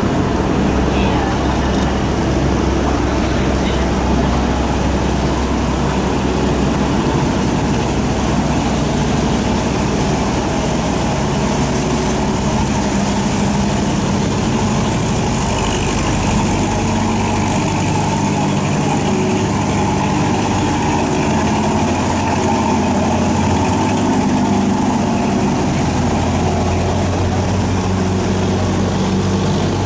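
Engine of a small loaded cargo barge running steadily as it passes close by, with water churning along the hull and washing over the low bow. The engine note shifts about halfway through.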